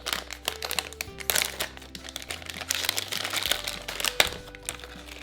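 Packaging of a toy blind bag crinkling and crackling as it is torn open and handled by hand, with a stream of short sharp crackles. Light instrumental background music plays underneath.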